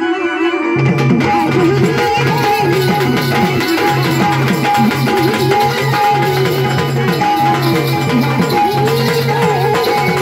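Instrumental passage of a Marathi gavlan folk song: quick hand-drum strokes with rattling percussion under a melody line, with no singing.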